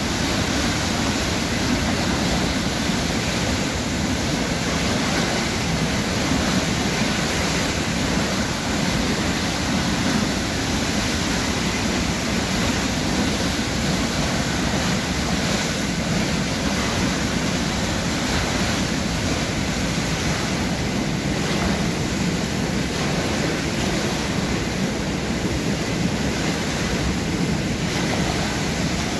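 Floodwater gushing out of the outlet openings of a stone dam and churning below: a loud, steady rush of water that holds unchanged throughout.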